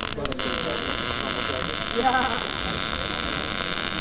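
MIG welder's arc buzzing and crackling steadily as filler wire feeds into the weld, with a brief cut-out just after the start.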